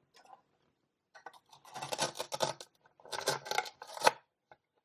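Velcro strip tearing apart as a toy knife cuts a pretend chili pepper in two: two ripping stretches about a second long each, the second ending in a sharp knock.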